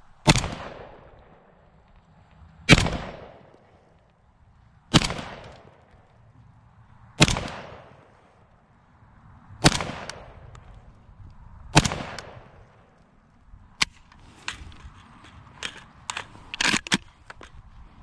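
Molot Vepr 12 12-gauge semi-automatic shotgun fired six times at a steady pace, a shot every two seconds or so, each blast trailing off in a long echo. After the last shot comes a quicker run of lighter sharp clicks and rattles as the gun is handled.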